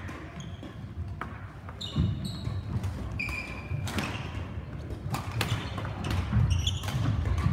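Badminton rally: sharp racket hits on the shuttlecock every second or so, with shoes squeaking and feet thudding on the court floor.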